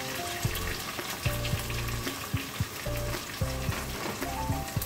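Chopped onions, tomatoes and ginger sizzling in hot oil in a steel kadai, a steady frying hiss, with soft background music.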